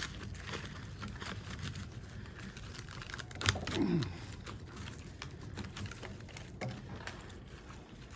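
Irregular clicking, crackling and scraping from hand work on the welder's wrapped transformer, with a short falling tone about three and a half seconds in.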